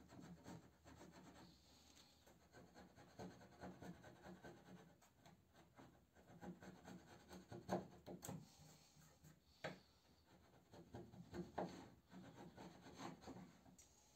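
Hand chisel paring a pine frame's mitred corner joint: faint, irregular scraping strokes of the blade on wood, with a few sharper cuts.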